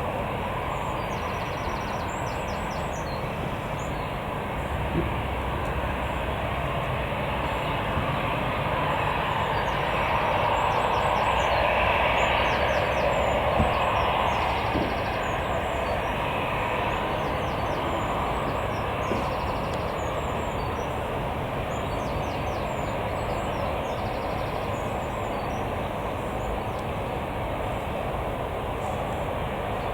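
Jet airliner engines heard as a steady rumble from the runway, swelling about a third of the way in and then easing back.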